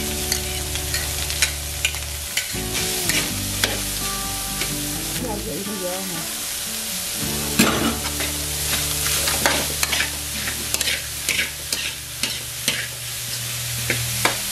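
A metal spatula scraping and tapping a steel wok as a minced vegetarian filling of mince, carrot and onion is stir-fried, over a continuous sizzle of frying. The scrapes and clicks come thicker in the second half.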